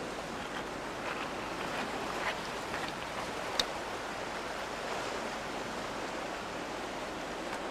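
Sea surf washing against a rocky shore, a steady hiss of water, with a few faint ticks and one sharper tick about three and a half seconds in.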